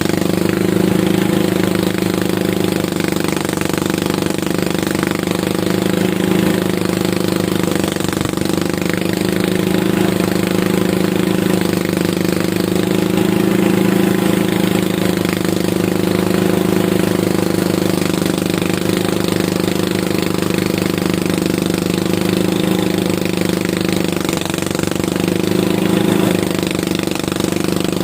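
Engine of a rice harvesting machine running steadily and loudly at a constant speed, with a fast, even chugging.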